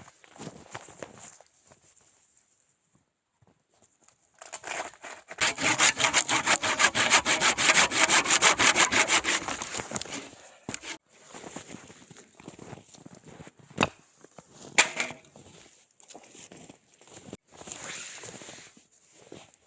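Hand saw cutting through wood: a run of quick, even strokes for about five seconds in the middle, followed by scattered knocks and handling noise.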